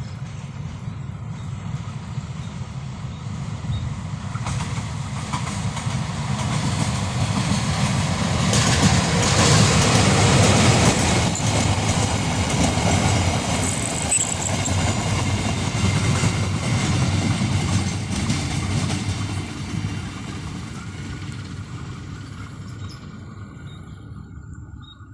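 Freight train passing: a diesel locomotive and its wagons rumbling over the rails. The sound grows to its loudest about ten seconds in, then slowly fades as the train rolls away.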